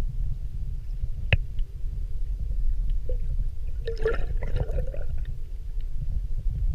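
Water heard from a camera held underwater in shallow water: a steady low rumble, a single sharp click about a second in, and a short spell of bubbling gurgles about four seconds in.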